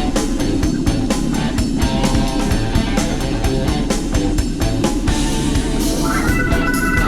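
Rock music with drum kit, guitar and bass, with a higher sustained organ-like line coming in near the end.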